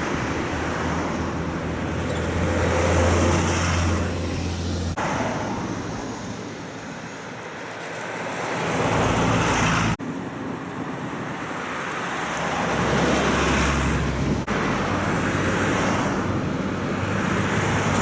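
Road traffic passing, with the low diesel drone of old Hino route buses drawing near. The sound jumps abruptly about three times.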